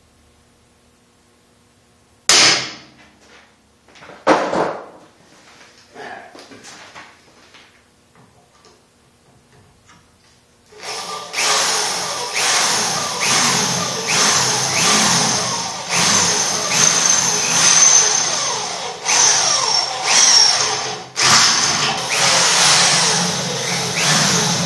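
Two sharp knocks about two seconds apart and a few lighter clicks, then about eleven seconds in a handheld electric drill starts and runs steadily, its bit cutting into a metal plate, with a high whine that swells and dips as the pressure on the bit changes.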